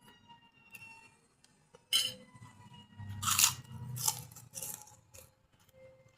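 A person biting and chewing crunchy food close to the microphone. A sharp crunch comes about two seconds in, then three more in quick succession over the next three seconds.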